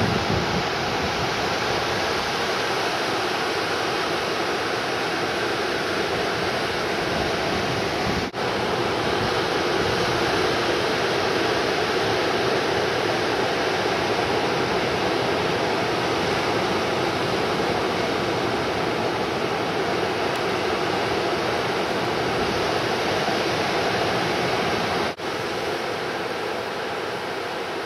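Ocean surf breaking and washing, a steady, even rushing noise, with two brief dips in level about eight seconds in and near the end.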